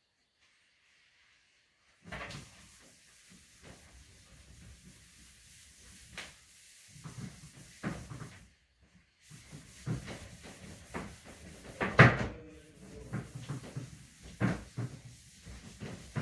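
A handheld duster wiping a whiteboard clean. Repeated rubbing strokes and knocks against the board start about two seconds in, with the loudest knock about twelve seconds in.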